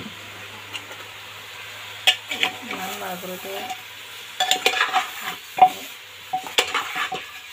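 A steel spoon stirring and turning pieces of cow feet in an aluminium pressure cooker, with irregular clinks and scrapes of metal against the pot starting about two seconds in and coming in bursts.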